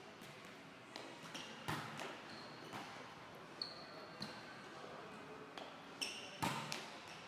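Scattered faint thuds of volleyballs striking a hard gym floor, the strongest about six seconds in, with a few short high sneaker squeaks as a player moves across the court. The hits echo in a large gym hall.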